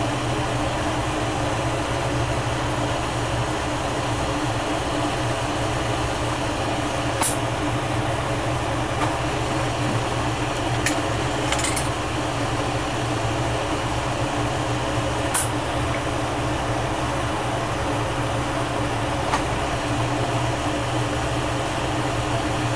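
Steady rushing hiss of a glassblower's bench torch flame burning, with a low hum underneath. A few brief clicks stand out.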